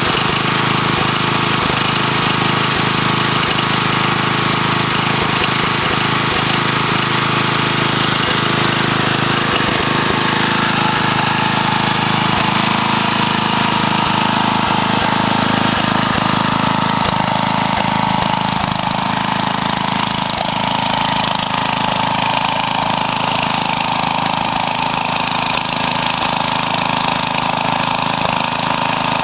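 JCPenney garden tractor's small gasoline engine running steadily, still cold after a cold start. Its tone changes slightly about eighteen seconds in.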